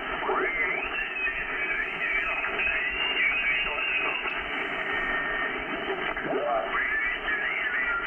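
Icom IC-7300 transceiver's speaker playing the 11-metre band in sideband mode: steady band-noise hiss with faint SSB voices sliding in pitch as the receiver is tuned and switched from lower to upper sideband.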